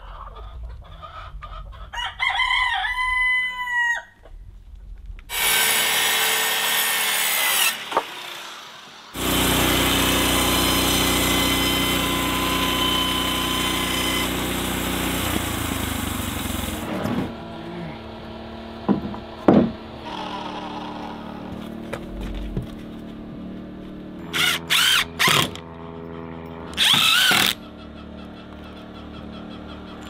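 A rooster crows once. Then a portable band sawmill runs, its blade cutting through a board, loud and steady for most of the middle. Near the end a cordless drill drives screws into the boards in several short bursts.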